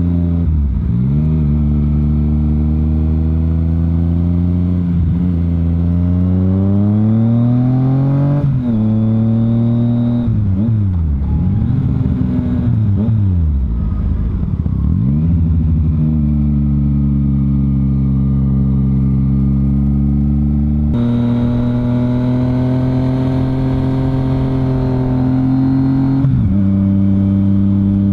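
A motorcycle engine heard from the rider's seat, pulling up a steep climb. The revs rise and drop back sharply several times as gears change, and they dip and pick up again in quick swoops through a tight bend midway.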